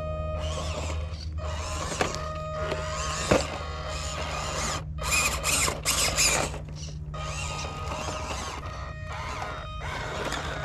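Small electric motor and gears of a 1/18-scale Glacier RC crawler whining in bursts, stopping and starting several times, with a couple of sharp knocks as it climbs over rocks.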